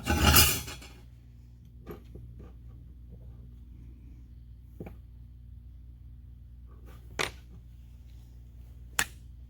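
A short burst of metal clattering and scraping in the first second, then a few sharp separate clicks of small metal parts and tools being handled while an impact wrench is taken apart, over a steady low hum.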